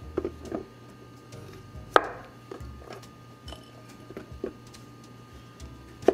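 Chef's knife cutting through a zucchini and knocking on a wooden cutting board: a few scattered knocks, the loudest about two seconds in.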